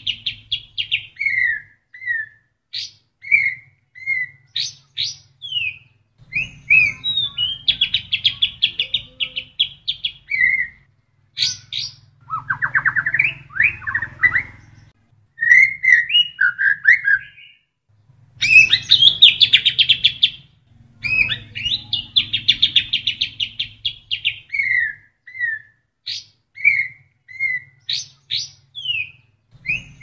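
White-rumped shama (murai batu) singing a long varied song. Rapid buzzy trills alternate with short down-sliding whistles and sharp high notes, phrase after phrase with brief pauses, and the song is filled with mimicked kapas tembak phrases. A low hum runs under the louder phrases.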